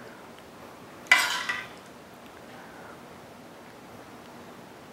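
A metal spoon scraping and clinking against cookware while tomato sauce is scooped and spread: one sharp scrape about a second in that fades over half a second, another near the end, with faint room tone between.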